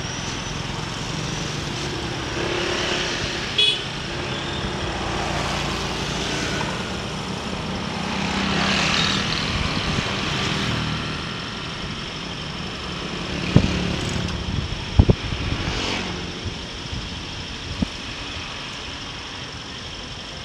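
Motorcycle ridden along a road: its engine runs steadily under road and wind noise, swelling louder near the middle. There is a brief high horn toot about four seconds in, and a few sharp knocks a little past two-thirds of the way through.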